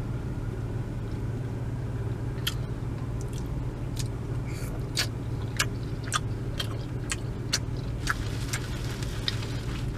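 Eating a seafood boil with the mouth close to the microphone: chewing with sharp, irregular clicks and smacks from about two seconds in. A steady low hum, typical of a car's engine idling, runs underneath.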